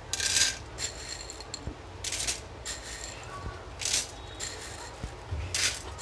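Unpopped popcorn kernels in hot ghee in an aluminium kadai: about six short bursts of crackle and clink at irregular gaps.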